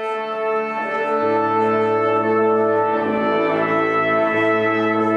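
Symphony orchestra brass section holding sustained chords that swell in loudness, with a low bass note entering about a second in.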